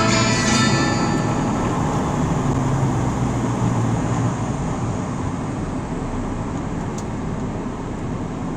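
Steady road and engine noise of a car at highway speed, as the tail of a song fades out in the first second or two.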